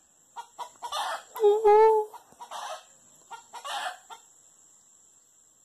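Hen cackling: short harsh clucks with one longer drawn-out squawk about a second and a half in. The clucks thin out and stop about four seconds in.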